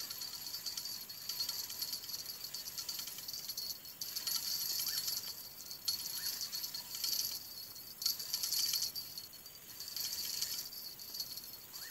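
A fishing reel on a bamboo rod being cranked in stretches of about a second, each a fast rattling tick, stopping and starting as a fish is wound in.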